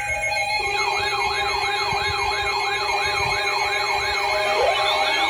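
Several electronic emergency-alert tones sounding together: steady high tones with a warbling siren tone that sweeps up and down about three to four times a second, joined by a lower steady tone about half a second in.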